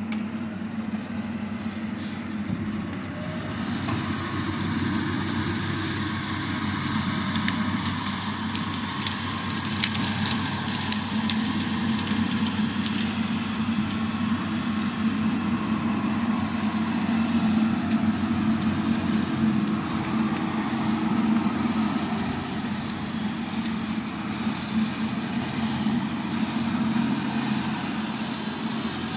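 Diesel engine of a John Deere grapple skidder running under load, growing louder over the first few seconds as the machine drives up. Scattered cracking and snapping of wood from the logs it drags.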